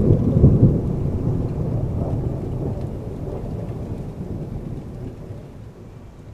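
Rolling thunder with rain, a deep rumble that is loudest about half a second in and then dies away gradually.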